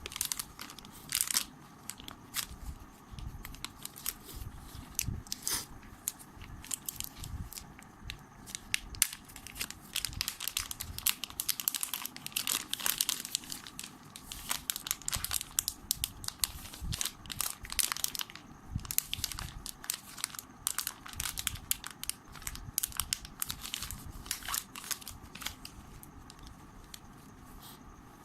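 Plastic packaging crinkling and rustling as it is handled and torn open by hand, with many small irregular crackles and clicks. It is busiest in the middle and thins out toward the end.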